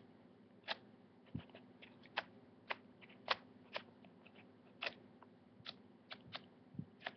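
Sheets of a scrapbook paper pad being flipped over one after another. Each page turn is a short, crisp paper flick, irregularly spaced at roughly one or two a second.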